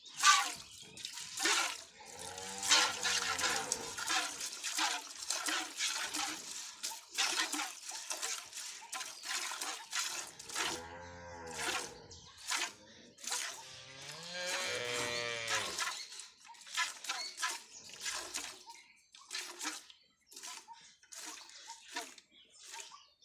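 Milk squirting by hand into a steel bucket in a steady rhythm of about two squirts a second. A cow moos three times over it, each low call lasting over a second.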